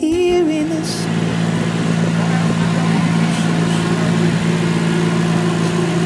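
Compact Green Machine street sweeper running with a steady, even hum as it works along the curb.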